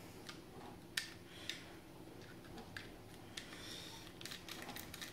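Faint small clicks of a screwdriver working a screw out of an airsoft rifle's lower receiver, with a few separate clicks at first and a quicker run of clicks over the last second or so.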